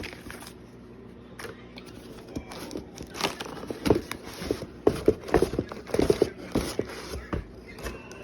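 A run of irregular clicks, knocks and light scrapes from parts being handled and fitted, busiest from about three seconds in.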